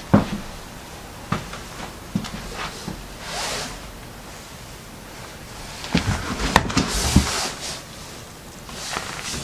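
Handling sounds of someone moving through clutter: scattered knocks and clunks with rustling, as a cardboard box is pulled from among clothes in a closet. The busiest stretch of clatter and rustle comes about six to seven and a half seconds in.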